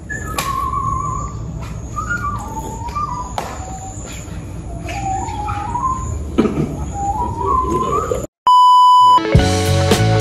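A whistle-like melody of held, stepping notes plays over a steady outdoor hiss and low rumble. About eight seconds in, it cuts off for a moment and a short pure beep sounds. Then music with a beat and plucked guitar begins.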